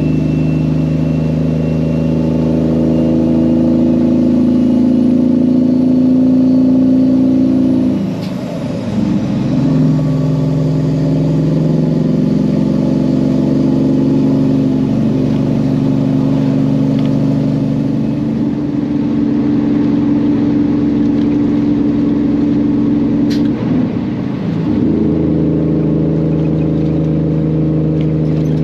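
Peterbilt semi truck's diesel engine pulling under load while driving, the drone broken twice by gear shifts, about 8 and 24 seconds in.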